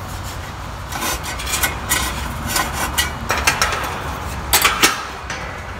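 Hands handling a kerosene heater's sheet-metal cabinet and wire guard grill: a string of sharp clicks and short scrapes, loudest near the end, over a low steady rumble.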